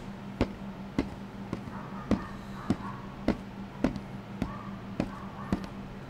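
AI-generated sound effect of a person in boots walking on a wooden floor: evenly paced footsteps, a little under two a second, over a low steady hum.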